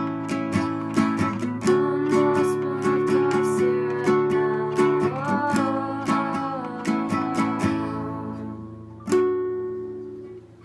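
Acoustic string instrument strummed in a steady rhythm, then one final strummed chord about nine seconds in, left to ring out and fade: the close of the song.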